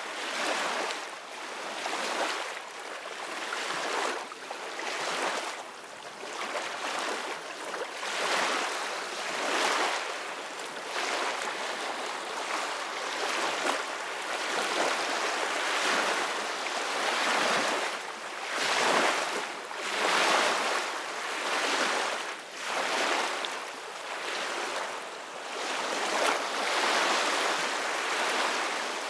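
Ocean surf: small waves breaking and washing in a steady hiss that swells and falls back every couple of seconds.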